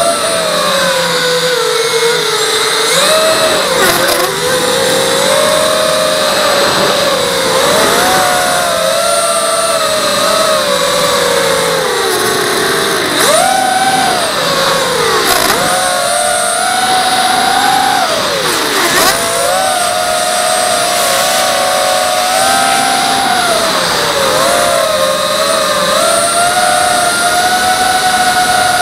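Brushless motors and propellers of a ZMR250 racing quadcopter (Emax 2204 2300kv motors on a 4S lipo) whining in flight, heard from the quad's own camera. The pitch swings up and down with the throttle, with several sharp dips and climbs over a steady propeller hiss.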